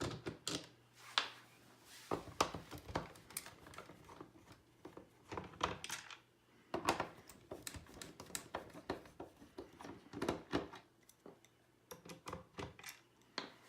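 Screws being taken out of the plastic bottom cover of a pachinko machine: a string of irregular small clicks and taps from the tool, screws and plastic, with no motor running.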